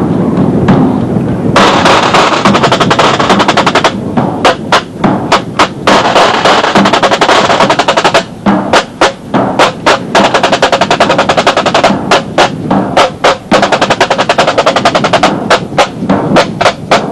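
Marching band drum line playing a cadence: rapid snare-drum rolls and strokes over bass drum, starting about a second and a half in and running on with short breaks between phrases.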